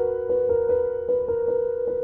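Background music: a light instrumental tune of repeated notes, about five a second, over held tones.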